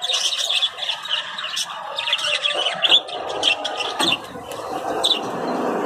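Caged parakeets chirping and chattering together: a dense, unbroken stream of quick high twitters, with lower, fuller calls joining in from about halfway through.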